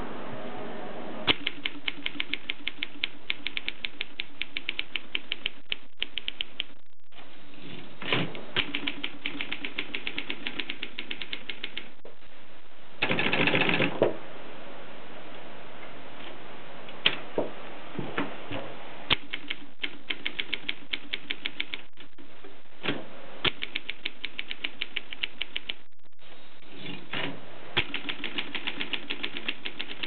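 Vintage 1950s Voss typewriter being typed on: quick, even runs of key strikes broken by short pauses, a few louder single strikes, and a denser burst of clatter about halfway through.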